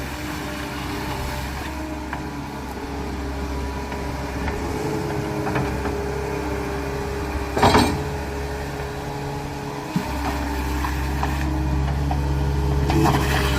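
Caterpillar 236D skid steer loader's diesel engine running steadily, with one loud knock about two-thirds of the way in.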